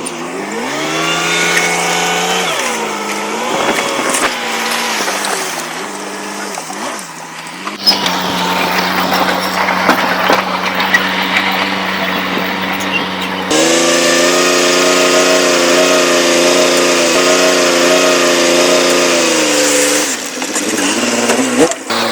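Diesel engines of a D20P bulldozer and a dump truck working, the engine pitch rising and falling with the revs. The sound changes abruptly about 8, 13 and 20 seconds in, as between separate clips.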